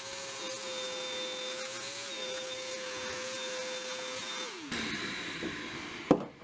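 A vacuum cleaner running with a steady whine, switched off about four and a half seconds in and winding down, falling in pitch. A single sharp click comes near the end.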